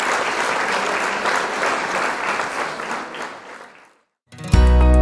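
Applause from a crowd, fading out over the first four seconds. After a brief silence, music with a deep bass note and sustained tones begins near the end.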